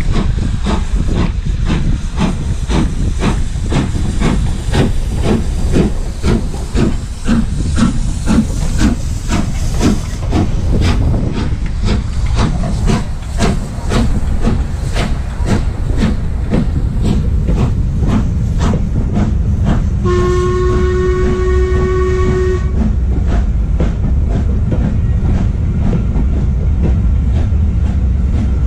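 LMS Black Five steam locomotive 45212 passing close by, its exhaust chuffing in a steady rhythm. About two-thirds of the way through it gives one steam whistle blast of about two and a half seconds. The coaches then roll past with a steady low rumble.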